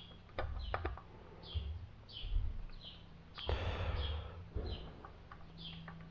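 Small metal parts being handled on a workbench: several sharp clicks and a louder rustle about three and a half seconds in. Behind it a bird chirps over and over in short falling notes.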